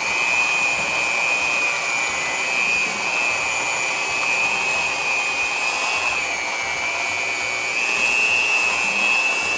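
Black & Decker electric hand mixer running, its beaters whipping thick buttercream icing, with a steady high motor whine that wavers slightly in pitch.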